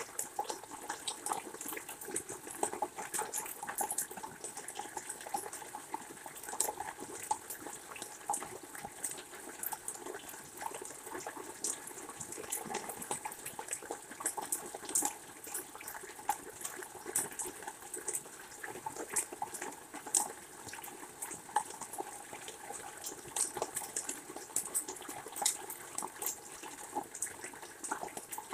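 Steady rain falling, with many irregular ticks of drops landing close by.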